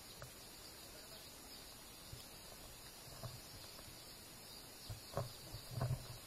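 Faint outdoor background hiss, with a few dull knocks in the last second and a half.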